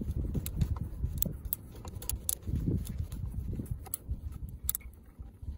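Socket driver with a hex bit tightening a saw-handle screw, giving scattered sharp metal clicks and rattles over a low rumble.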